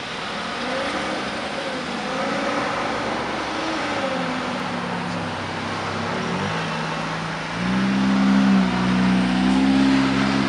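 Peterbilt 359 semi truck's diesel engine pulling away with a loaded flatbed trailer, its pitch rising and falling through gear changes. It grows louder about seven and a half seconds in as the truck turns toward the listener.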